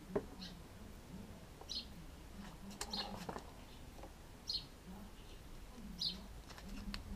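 Birds calling: a short high chirp repeated about every second and a half, over a lower call that also repeats. A few clicks about three seconds in and again near the end.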